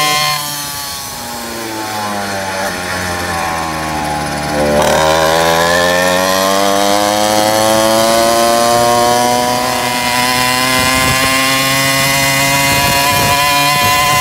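Small two-stroke motorized-bicycle engine, running on aviation gasoline, under way. For the first few seconds its note falls as the throttle is eased off. About five seconds in it is opened up again, gets louder, and the pitch climbs steadily as the bike gathers speed.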